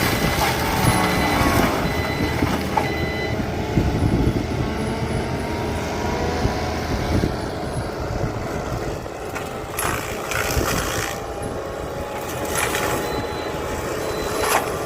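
Skid steer's engine running hard, driving a forestry mulcher head, with a few short bursts of harsher noise about two-thirds of the way through and near the end.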